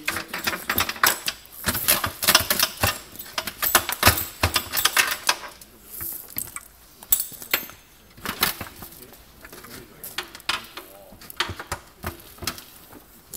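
Rapid clicking and clattering of a grain rescue tube's plastic panels and metal latches being loosened and handled, with knocks against the panels. It is busiest in the first five seconds or so, then comes in sparser clusters.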